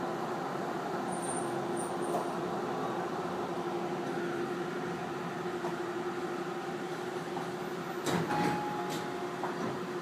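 Steady running noise inside a Tobu 50090-series electric train, with a constant hum. About eight seconds in, a few short knocks and a brief higher tone.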